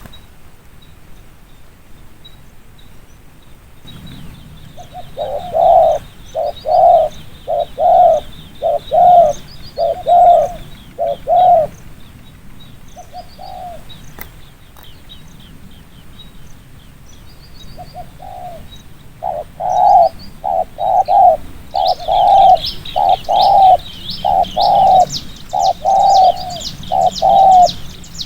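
Spotted dove cooing in quick, repeated short coos, in two bouts: one from about five seconds in, and a longer one from about nineteen seconds. Small birds chirp high in the background, louder near the end.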